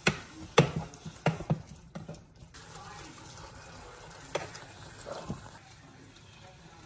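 Metal tongs clacking against the pot and each other as sauerkraut and wieners are stirred in an electric hot pot. There are several sharp clacks in the first two seconds and two more later, over a faint simmer from the pot.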